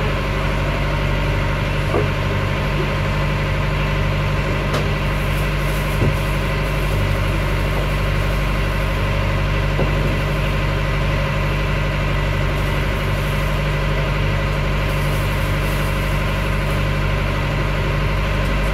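Motor cruiser's inboard diesel engine running at a steady speed, an even hum that does not change.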